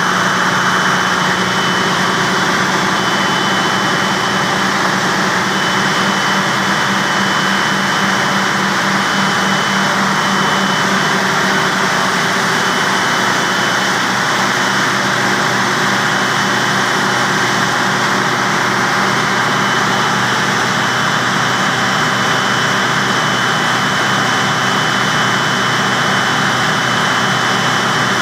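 Diesel generator engine running steadily at constant speed, a low throbbing hum with a thin steady high-pitched whine over it.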